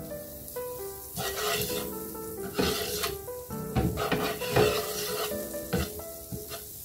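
Butter melting and sizzling on a hot nonstick tawa while a wooden slotted spatula spreads it around, with a few short sharp scrapes of the spatula on the pan.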